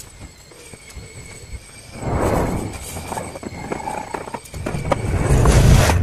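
Plastic base of an Electrolux LTE09 washing machine being set in place and its screws started with a hand screwdriver: handling knocks and a run of short clicks and rattles that begin about two seconds in and grow louder near the end.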